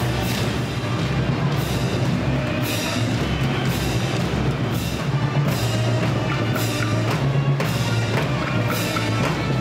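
Parade band music: a slow march with a heavy drum beat and crashes about once a second over steady low tones.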